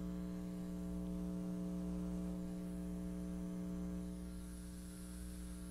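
Slight, steady electrical hum from a budget powered subwoofer box with a built-in amplifier, turned up near full volume with nothing playing: the amp's idle hum, a flaw of the unit. Heard close up at the speaker, it eases a little about four seconds in.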